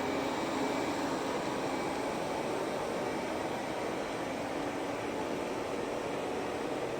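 Roemo Pro robot vacuum cleaner running, a steady whirring hiss from its suction fan and brushes.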